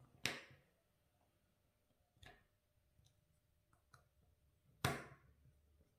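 Small screwdriver working the screws of a plastic satnav back cover. There is a sharp click just after the start, a fainter one about two seconds in and another sharp click near five seconds, with faint ticks of plastic and metal handling between them.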